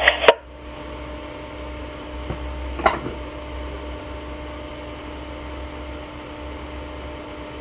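Steady low background hum with faint steady tones in a pause between two-way radio transmissions; the last transmission cuts off just after the start, and a single short click comes about three seconds in.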